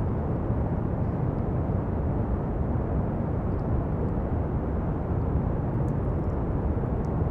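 Steady pink noise: an even hiss weighted toward the low end, with no rise or fall.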